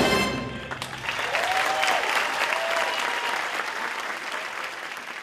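A live band's final note cuts off and a theatre audience applauds, with a brief cheer or two in the middle; the clapping eases slightly toward the end.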